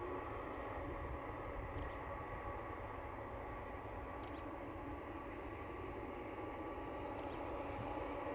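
Jet airliner engines running steadily, a low rumble with a level whine over it.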